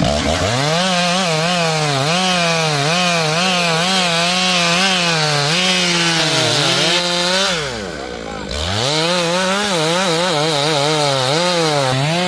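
Gas chainsaw cutting through a log at high revs, its engine note wavering as the chain bogs and recovers in the wood. About seven and a half seconds in, the revs drop away briefly, then it is throttled back up and cuts on.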